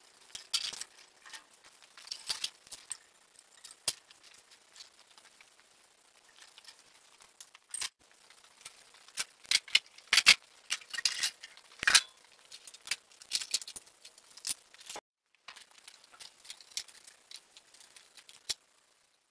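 Irregular metallic clinks, clanks and rattles of hand tools and metal parts being handled while a small Honda engine is fitted to a garden tractor's chassis. The sound cuts out briefly just before 15 s and then carries on.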